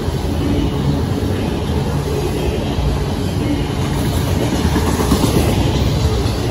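Double-stack intermodal freight train rolling past close by: a steady, loud rumble of steel wheels on the rails as the loaded container well cars go by.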